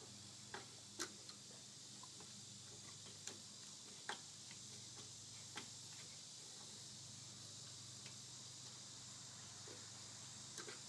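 Thread tap being turned by hand in a tap handle, re-cutting worn-out mount-bolt threads in a Kohler K321's aluminum oil pan: faint, irregular ticks and clicks, about half a dozen spread over ten seconds, over a low steady hum.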